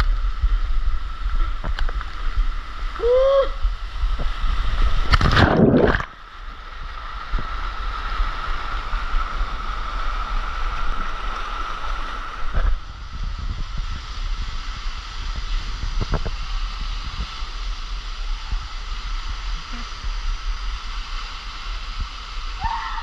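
Water rushing and sloshing on a water slide ride, heard from a camera riding along. It swells into a loud rush about five seconds in, then drops suddenly to a quieter, steady flow.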